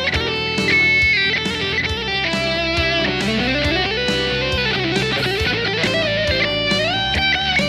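Ibanez electric guitar playing a lead line: held notes with bends, and a slow rising slide about three seconds in.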